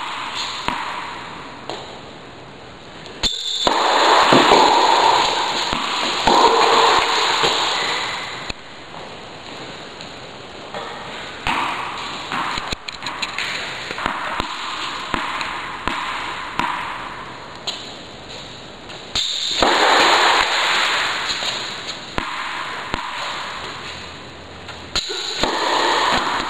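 Tennis balls struck with a racket in an echoing indoor hall: sharp pops at irregular intervals over a loud hiss that swells and fades.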